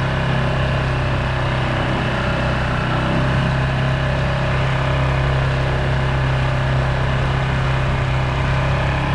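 Mercury 6 hp outboard motor running at a steady speed, an even unchanging hum.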